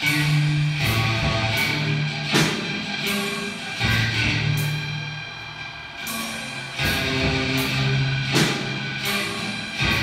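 Music played by a robotic band of mechanical instruments: sharp drum-kit strikes over a repeating bass line and sustained higher tones.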